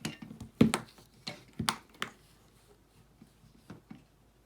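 Sharp clicks and snips of a hand tool working on a LiPo battery wire while its insulation is stripped, most of them close together in the first two seconds, with a couple of fainter clicks later.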